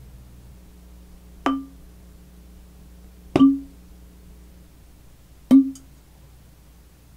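Empty bottles struck one at a time, three times about two seconds apart; each strike gives a short ringing note at about the same pitch that dies away quickly.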